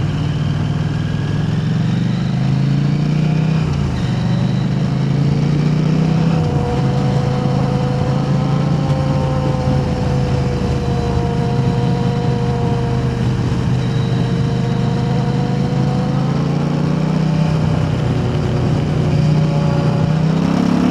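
KTM 890 Adventure R's parallel-twin engine, breathing through an Arrow Race-Tech aftermarket exhaust, running at fairly steady revs while riding, with road and wind noise. Its pitch drifts gently with no hard revving.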